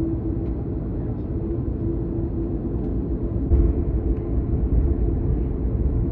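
Cabin noise inside an Airbus A320neo moving slowly on the apron: a steady low rumble with a constant droning hum. The rumble grows louder about three and a half seconds in.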